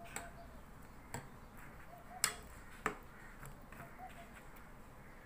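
A metal spoon clinking and tapping four times against a small glass jar and cooking pot while shrimp paste is scooped out, the two taps in the middle being the loudest.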